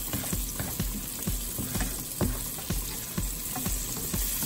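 Garlic, green chilies, turmeric and cumin seeds sizzling in hot oil in a frying pan, the cumin seeds crackling and popping with many irregular sharp clicks. A plastic slotted spatula stirs and scrapes through them.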